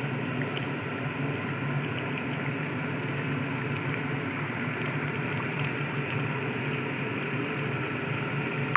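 Katla fish curry with potatoes boiling in a kadai: a steady bubbling with faint scattered pops.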